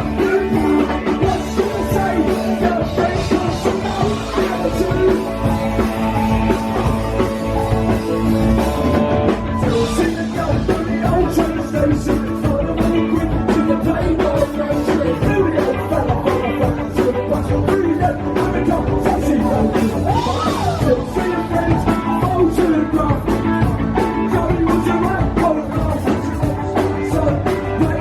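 Live rock band playing, with electric guitars, bass, drums and keys driving a steady beat, and a voice singing over it.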